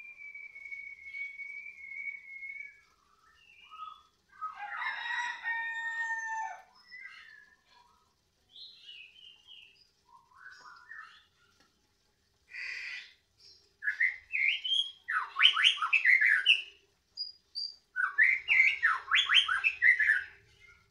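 Caged white-rumped shama (murai batu) singing: it opens with one long, steady whistle, then gives scattered short phrases. Near the end come two loud runs of rapid rising-and-falling notes, the loudest part.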